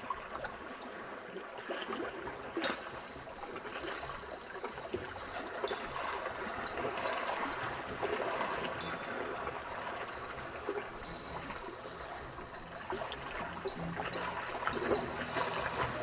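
Water trickling and dribbling, with scattered small clicks and splashes. A thin, high, steady tone sounds twice for a second or two.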